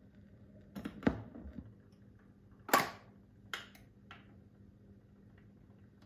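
A few irregular knocks and clicks, the loudest about three seconds in, over a faint steady hum from the Bush SRP51 record player.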